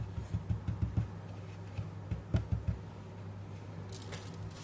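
Soft, quick low knocks of cookie dough balls being rolled in powdered sugar on a plate, in two short runs, then a brief rustle of parchment paper as a ball is set on the baking tray near the end, over a steady low hum.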